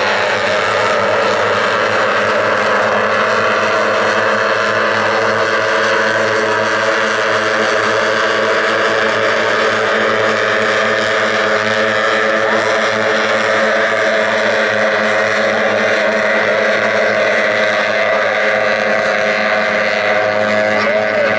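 A pack of C Racing Hydro outboard hydroplanes running at speed together: several two-stroke racing outboard engines with their notes overlapping into one steady, continuous drone.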